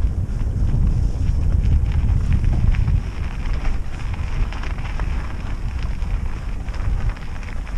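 Wind buffeting the microphone as a Trek Roscoe 6 mountain bike rolls along a dirt trail, with tyre rumble and a run of small clicks and rattles from the bike over the rough ground. The wind rumble is heaviest for the first three seconds, then eases.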